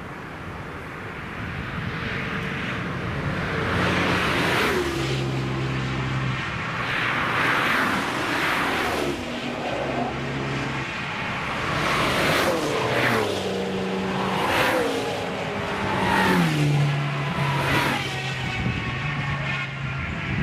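Several cars going past one after another at speed on a race track, each engine note swelling and then dropping in pitch as it passes, with gear changes heard in between.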